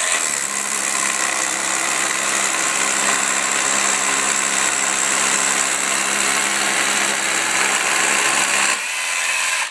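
DeWALT DCH213 20V MAX cordless SDS rotary hammer hammer-drilling a half-inch hole into a concrete block: a steady, loud hammering drill sound. Near the end the hammering drops away and the drill runs on more quietly before stopping.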